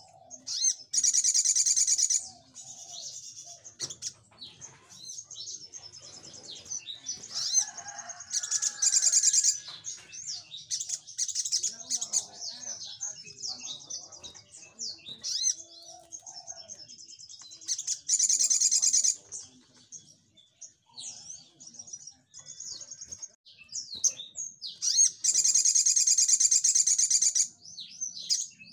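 Male olive-backed sunbird singing: four loud, rapid high trills lasting one to three seconds each, the last the longest, with scattered short, sharp chirps between them.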